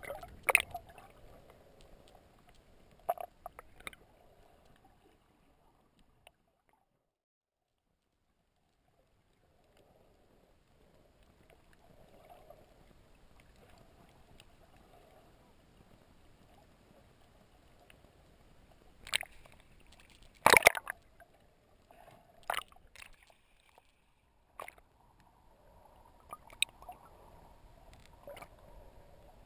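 Muffled water sound picked up by an action camera held underwater: faint sloshing and gurgling, broken by a few sharp knocks, the loudest about 19 and 20 seconds in. The sound drops to dead silence for a few seconds about six seconds in.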